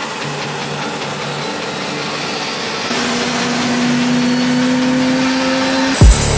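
Jet engines of an EA-18G Growler running on the flight line: a steady roar, joined about three seconds in by a whine that slowly rises in pitch. Near the end a loud, deep bass hit falling in pitch cuts in from the music track.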